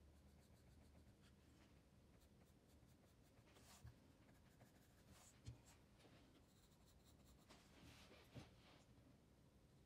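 Graphite pencil scratching faintly on paper in short shading strokes, with three soft knocks of the pencil or hand on the paper about two-fifths, halfway and four-fifths of the way through.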